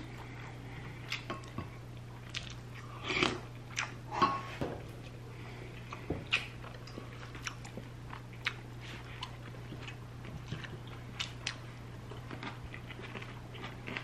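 Close-miked eating: chewing chunks of grilled Korean beef (hanwoo) and rice, with scattered light clicks of chopsticks against dishes, over a steady low hum.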